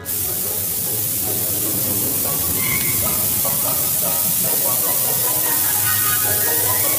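Fire extinguisher spraying: a steady, even hiss that starts suddenly and holds without a break.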